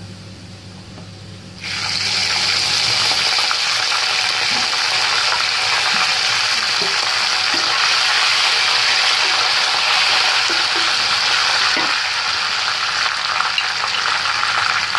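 Soy sauce hitting hot oil in a frying pan of fried garlic, dried red chillies and onion, setting off a sudden loud sizzle about two seconds in. The sizzle carries on steadily while a spatula stirs the pan.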